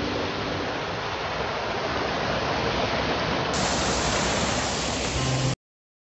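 Water from a small rocky waterfall rushing and splashing down between boulders, a steady hiss that cuts off suddenly near the end.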